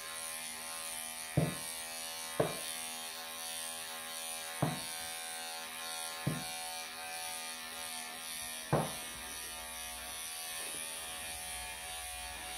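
Wahl electric pet clippers running with a steady buzz as they shear a Persian cat's long coat. Five short knocks come through the first nine seconds or so.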